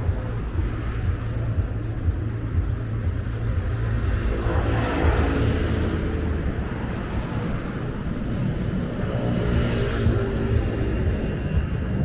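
City road traffic: a steady low rumble with vehicles passing, one swelling up and fading about five seconds in and another near ten seconds.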